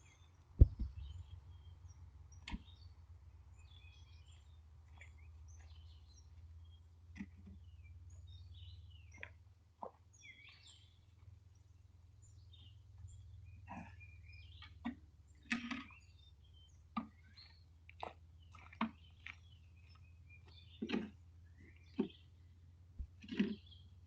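A string of short knocks and scrapes, roughly one a second in the second half, with a single sharp click about a second in. Faint high chirps, like small birds, sound throughout over a low steady hum.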